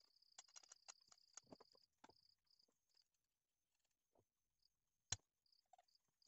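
Faint small clicks and scrapes of a metal rotisserie skewer being worked out of a roasted chicken, busiest in the first two seconds, with one sharper click about five seconds in. A faint high-pitched chirping comes and goes behind it.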